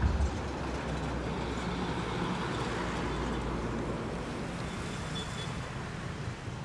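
Steady road traffic: a heavy container truck's diesel engine drone and tyre noise, with motorcycles and cars passing.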